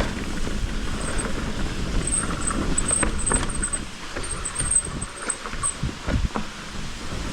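Mountain bike rolling over a wet, rocky trail: a steady rumble of tyres and frame with frequent knocks and rattles over rocks. A faint, wavering high squeal comes and goes, typical of wet disc brakes held on.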